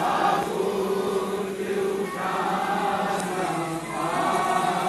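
Men's voices chanting a nauha, a Shia Muharram lament, in long held melodic phrases, with a short break about two seconds in.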